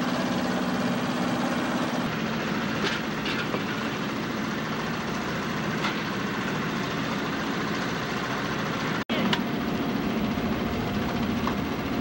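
Steady machinery drone with a low hum. The hum shifts about two seconds in, and the sound drops out for an instant about nine seconds in.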